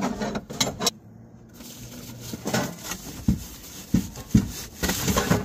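Camping gear being shifted and packed into a pickup bed under a camper shell: a string of irregular thumps and knocks, the loudest about four seconds in, with bags rustling between them.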